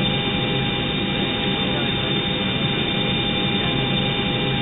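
Recreated cockpit voice recorder background noise: the steady hiss and hum of an aircraft cockpit in flight, with a few faint constant tones. It sounds dull and muffled, as on a recorder track.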